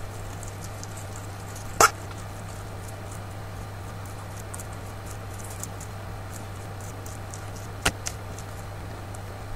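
A guinea pig hiccuping twice, each a short sharp hic, the second about six seconds after the first, with faint crisp ticks of it chewing parsley in between.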